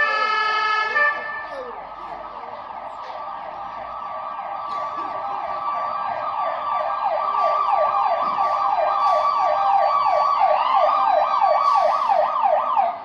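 Emergency vehicle siren. It opens with about a second of steady horn-like tone, then switches to a fast yelp, several rising sweeps a second, which grows louder as the vehicle approaches and cuts off suddenly at the end.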